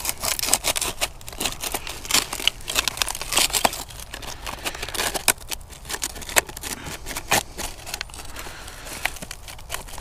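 Knife blade cutting and prying open a rusted, corroded sheet-metal WWII German gas mask canister: irregular scraping, crunching and crackling as the brittle rusted tin is torn apart.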